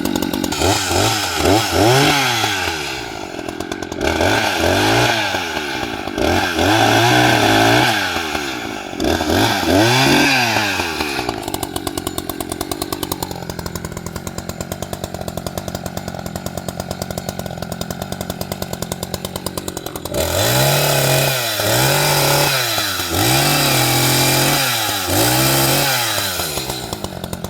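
Echo CS-590 Timber Wolf two-stroke chainsaw engine running, revved in a string of quick throttle blips that rise and fall in pitch. Around the middle it settles to a steadier idle, then is blipped about five more times near the end.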